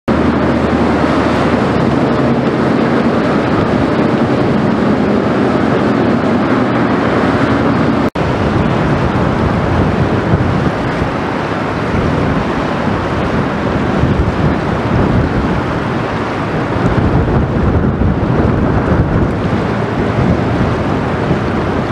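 Wind buffeting the microphone over the wash of river water from a passing inland container barge's bow wave. A low steady hum runs under the first eight seconds, and the sound drops out for an instant about eight seconds in.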